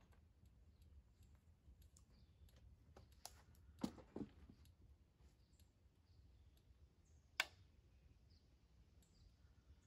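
Near silence, broken by a few faint, isolated clicks and knocks, the sharpest one about seven seconds in.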